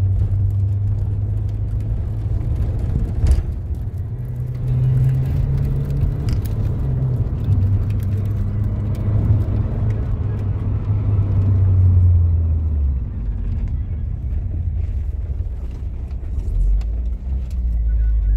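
Vehicle engine running with a steady low hum that rises in pitch about five seconds in, settles back, and drops lower about thirteen seconds in, with road noise.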